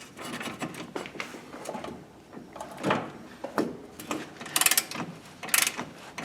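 Hand tools clicking and scraping on metal while shearing off a rusted-in cotter pin at a tie rod end, with a few short metallic clinks in the second half.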